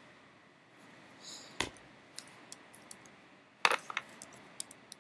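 Sharp clicks and knocks on a desk: a single knock about a second and a half in, a louder cluster of knocks near four seconds, then several lighter clicks of computer keyboard keys being pressed.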